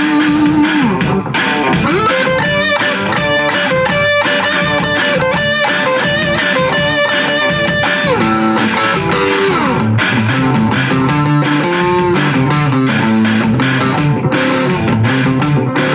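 Electric guitar played through a 1972 Sound City Mk4 amplifier. It plays held notes with string bends, then riffs lower down on the neck in the last few seconds.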